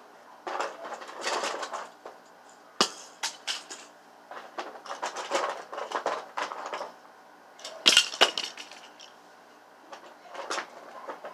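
Rustling and clattering of things being handled, in bursts, with sharp knocks about three seconds in and a louder pair of knocks about eight seconds in.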